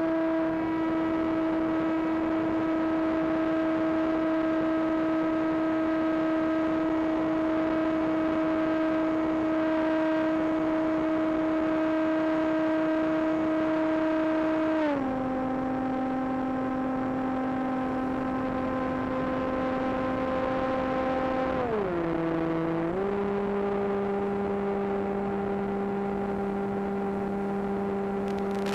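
Electric motor and propeller of a Hobbyking AXN Floater Jet model plane in flight, heard from on board as a steady high whine. The pitch steps down about halfway through, then dips briefly and settles lower about three quarters of the way in as the throttle is eased back.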